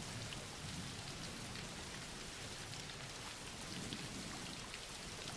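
Steady rain, a quiet even hiss with faint scattered drop ticks.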